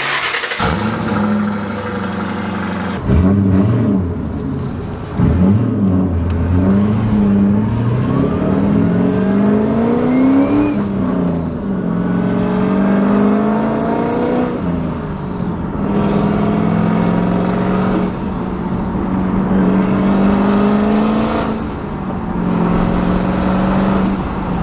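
Turbocharged 4.6-litre three-valve V8 of an S197 Mustang GT accelerating through the gears of its manual gearbox, the engine note climbing in each gear and dropping at each upshift, then holding steadier near the end.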